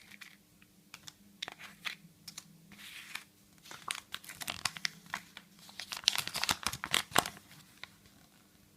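Plastic toy packaging from a Kinder Joy surprise egg being crinkled and torn open by hand. The crackling comes in irregular bursts and is loudest in a dense run about six to seven seconds in.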